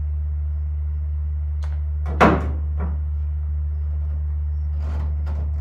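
PVC pipe and fittings being handled and fitted together: a few light knocks and one sharp plastic clack about two seconds in, over a steady low hum.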